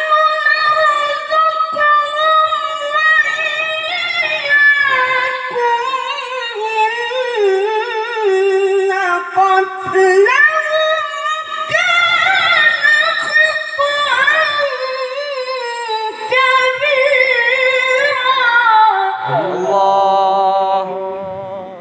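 A qari's solo voice chanting Quran recitation (tilawah) in long, high, melismatic phrases with wavering ornaments, broken by short pauses for breath.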